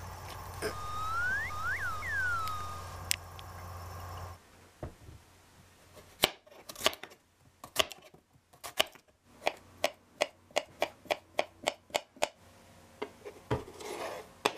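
Kitchen knife chopping a grey zucchini on a plastic cutting board: a run of sharp chops, settling into about three a second, then the diced pieces scraped across the board near the end. Before the chopping, a short synthesized tone sweeps up and back down over a steady hum.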